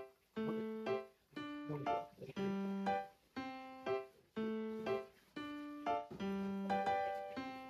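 Background music: a slow piano melody of struck notes that ring and fade, about one or two notes a second.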